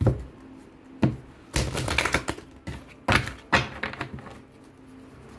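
Oracle cards being shuffled by hand: a handful of sharp taps and clacks of the cards against each other, with a short run of rustling about two seconds in, quieter toward the end.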